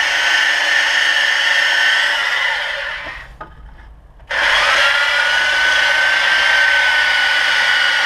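Handheld electric sander with 120-grit paper running on wooden boards. It winds down with a falling whine about two seconds in and goes quiet. About four seconds in it starts again with a rising whine and runs steadily until it stops near the end.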